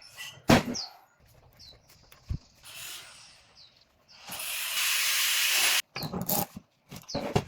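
Workshop handling noises, a few knocks and clicks, then a loud steady hiss of escaping gas or air for about a second and a half that cuts off suddenly, followed by more quick knocks.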